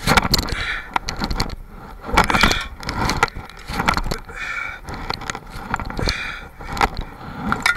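Knocks, scrapes and rustles from a body-worn camera as its wearer swings hand over hand along wet metal monkey bars, coming in uneven bursts about once a second.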